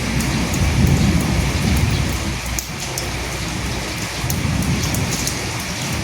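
Steady rain falling on a surface, with scattered close drop ticks. A low rumble swells through the first two and a half seconds and then fades under the rain.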